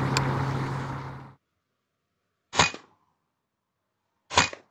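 Two sharp shots from a PCP air rifle, the FX Dynamic Compact, about two seconds apart, each a short crack with a brief tail. Before them, a steady background with a low hum cuts off suddenly about a second in.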